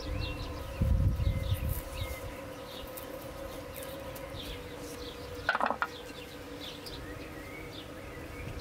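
Outdoor garden ambience: a steady buzzing hum of insects, with small birds chirping over it in short falling chirps. There are low rumbling thumps about a second in and a brief scrape about five and a half seconds in.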